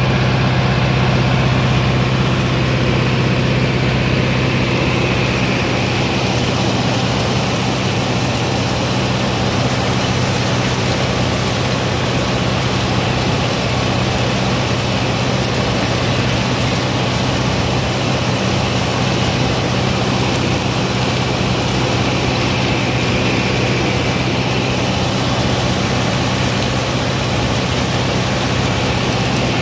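Tractor engine running steadily under load as it pulls and drives a New Idea two-row corn picker with sheller, the picker's machinery running with it during corn shelling. A constant low drone that does not change.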